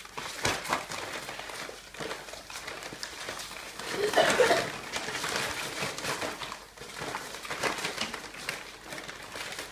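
Ferrets scrabbling over and burrowing into an empty chicken-feed sack, the sack rustling and crinkling in irregular bursts, loudest about four seconds in.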